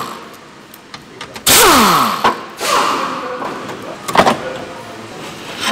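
Pneumatic impact wrench run in two bursts, a longer one about a second and a half in and a shorter one just after, each a loud air hiss with a whine that falls as the air motor spins down after freeing a bolt of the car's underbody panel. A sharp click follows about four seconds in.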